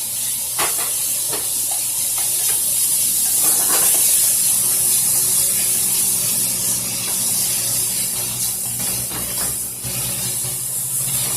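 Chicken strips and chopped steak sizzling in a hot pan with no added oil, frying in the fat from the chicken skin; a steady loud hiss with a few short scrapes or knocks.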